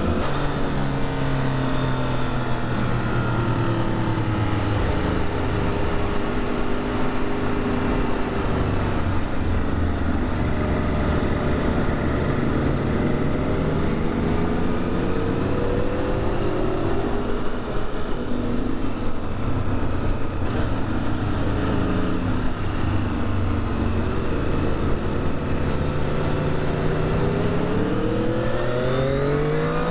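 Triumph Daytona Moto2 765's inline-triple engine running while riding in traffic at low speed, its note falling and rising with the throttle, then climbing sharply as it accelerates near the end, over wind and road noise.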